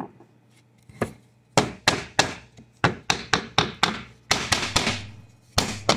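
CNC-cut 3/4-inch plywood pieces knocking against the plywood sheet as they are lifted out of their cut-outs and handled: a string of about a dozen sharp wooden knocks.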